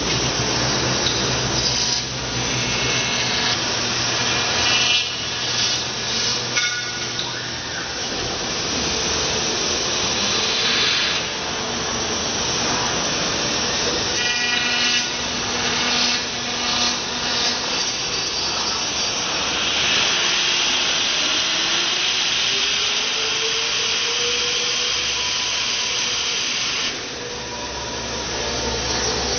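A 5-axis CNC router's spindle and cutter carving a foam block: a steady whir with a hissing, rasping cut that swells and eases as the tool moves. About two-thirds of the way through, a tone slowly rises in pitch.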